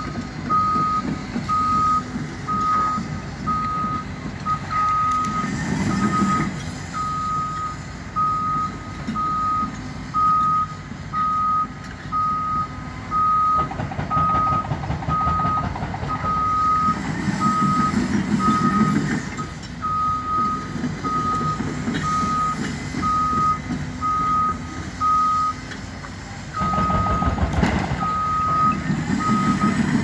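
Heavy equipment backup alarm beeping steadily, about one beep every 0.8 seconds with a brief pause near the end, over the low rumble of diesel demolition excavators working. The engine sound swells several times and is loudest just before the end.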